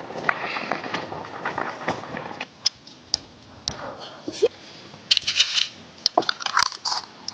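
Crisp fried potato chips being bitten and chewed, with irregular sharp crunches and crackles that cluster in the second half.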